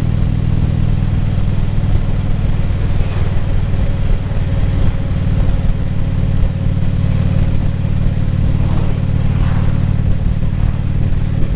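Harley-Davidson V-twin motorcycle engine running steadily at cruising speed, heard from the rider's helmet microphone with road and wind noise.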